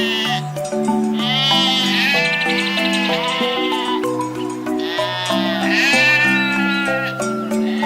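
Sheep bleating several times, long wavering bleats of about a second each, over background music with steady melodic notes.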